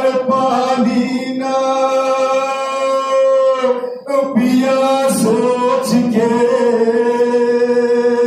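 Men's voices singing a Muharram lament (noha) unaccompanied, in long drawn-out notes, with a short break for breath about four seconds in.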